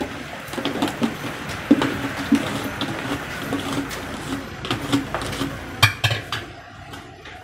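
Large thin-metal tin of cooking ghee tipped and knocked against the rim of a big steel cooking pot. Irregular clanks and taps of the can and its cut lid over steady background noise, with a sharper double knock about six seconds in.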